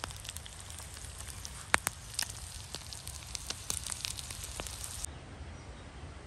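Eggs, bacon and peperoncini frying in a pan over campfire embers: a sizzle with scattered sharp pops and crackles, the loudest a little under two seconds in. The popping stops abruptly about five seconds in, leaving a low steady outdoor background.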